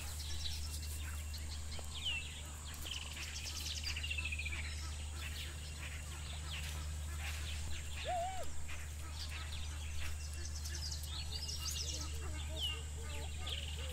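Bird song over a steady low rumble: a bird gives a short rising note followed by a quick run of notes falling in pitch, twice, about two seconds in and again near the end.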